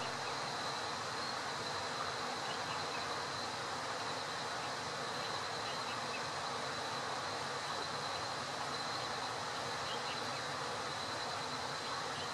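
Steady rush of shallow river water running over stones, with a thin, steady high-pitched whine over it.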